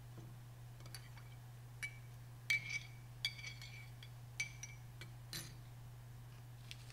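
Quiet room tone: a steady low hum with about half a dozen faint, irregular light clicks, a few of them with a short high ring.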